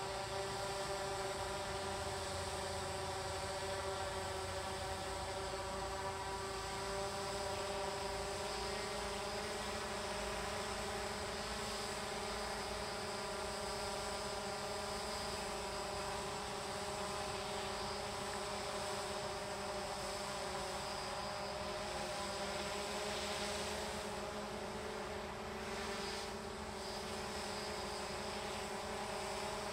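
WATT 200 tethered multirotor drone hovering: a steady propeller buzz of several held tones that shifts slightly in pitch about two-thirds of the way through.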